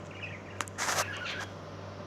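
A pet bird gives one short harsh squawk about a second in, just after a single click, over a steady low hum.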